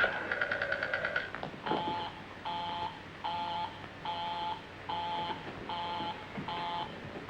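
A telephone bell trills briefly, then a telephone busy signal takes over: a buzzing tone pulsing on and off about every three-quarters of a second.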